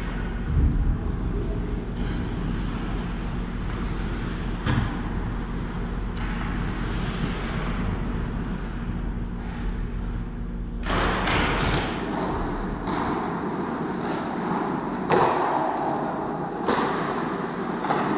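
Ice hockey play in a rink: a series of sharp knocks and thuds of puck and sticks against the boards and ice over a steady low hum, with more frequent, louder knocks from about two-thirds of the way in.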